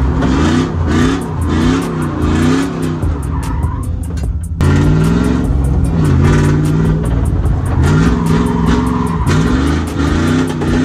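GM LS3 V8 swapped into a BMW E46 drift car, heard from inside the cabin, revving up and down again and again as the car is thrown sideways, with tyre noise over it. The sound breaks off for an instant about four and a half seconds in, then the revving picks up again.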